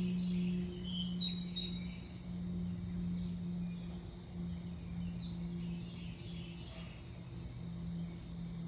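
Cessna 441 Conquest twin turboprop flying over at a distance: a steady low drone that swells and fades slightly. Birds chirp over it, most busily in the first two seconds.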